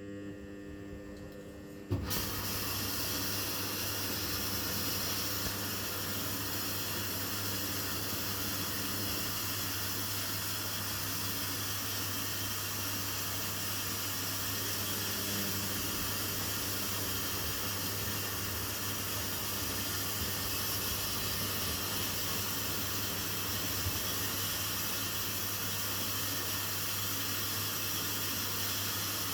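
Continental Edison washing machine taking in water: about two seconds in, the water inlet opens suddenly and water hisses steadily into the machine over a low hum.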